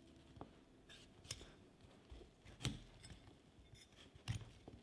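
Kitchen knife cutting broccoli florets from the stalk on a wooden cutting board: faint crisp cuts through the stems and a few sharp knocks of the blade on the board. The loudest come about halfway through and near the end.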